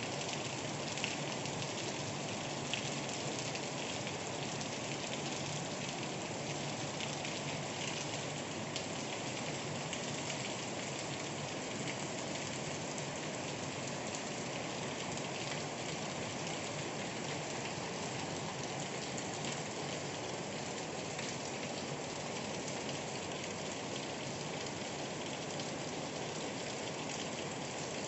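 Heavy rain falling steadily, an even patter of drops with occasional sharper ticks.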